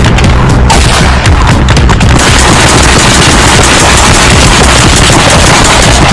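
Loud music track with a heavy, dense beat and rapid percussive hits; the sound grows fuller and brighter about two seconds in.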